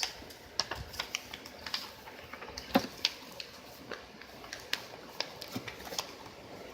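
A sheet of paper being handled and folded into a paper airplane: irregular crinkles and sharp little clicks as it is creased.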